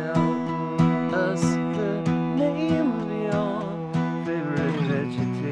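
Guitar strumming held chords at about two strums a second, with a melody that slides in pitch above them.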